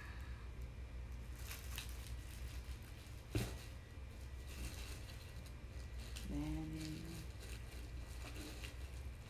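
Faint rustling and clicking of plastic and sauce packets being rummaged through, with one sharper knock about three and a half seconds in.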